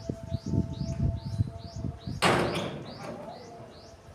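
A small bird chirping over and over, about three short calls a second, over low uneven rumbling thumps. Just after two seconds in, a sudden loud rushing burst of noise fades away over about half a second.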